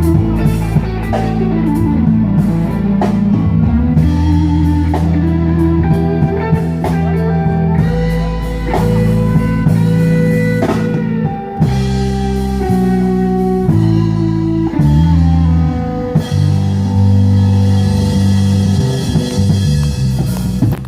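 Live band playing an instrumental passage of a country ballad: electric guitar lead over bass and drum kit.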